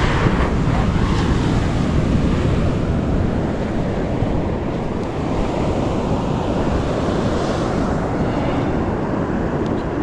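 Sea waves breaking on a sandy beach, with wind buffeting the microphone: a steady noise that holds throughout.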